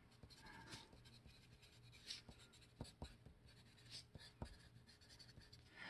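Faint scratching of a wooden graphite pencil writing on paper, in short strokes with a few light taps.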